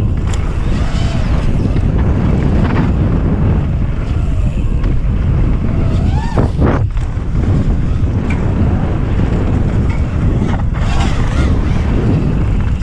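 Heavy wind buffeting on the microphone, with the whine of an FPV racing quadcopter's motors rising and falling in pitch as it throttles. The whine sweeps sharply up and back down about six and a half seconds in.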